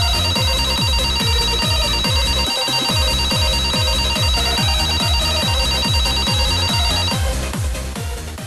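Techno music with a steady kick drum, and a telephone ringing over it in a fast trilling ring that stops about seven seconds in.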